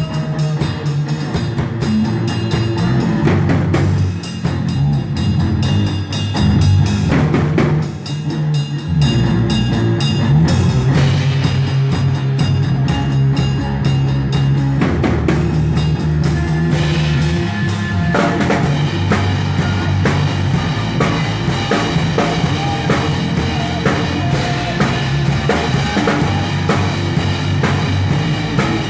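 A live rock band playing loud on stage, with the drum kit to the fore (bass drum and snare) under sustained low instrumental parts and no singing. About eighteen seconds in the playing settles into a steady, even beat.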